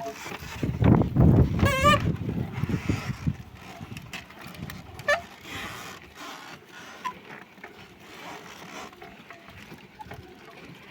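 Wooden ox cart 'singing': the axle squeals in wavering whining tones as the wheels turn, over a low rumbling of the cart. The squeal is strongest in the first two seconds, comes again briefly about five seconds in, and the rumbling then fades.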